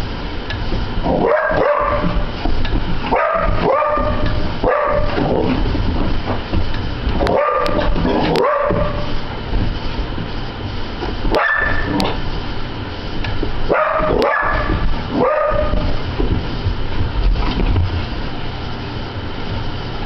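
Border collie barking and yipping in short clusters every few seconds, many calls dropping in pitch, over a steady low hum. The dog is fixated on a ceiling fan, a compulsive habit the owner calls OCD.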